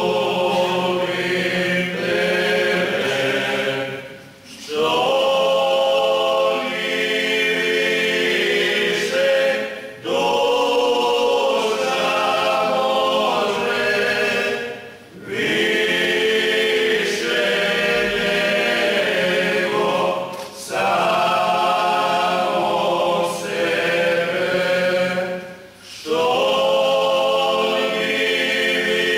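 Male folk vocal group singing a Lenten church song a cappella, in long held phrases broken by short pauses for breath about every five seconds.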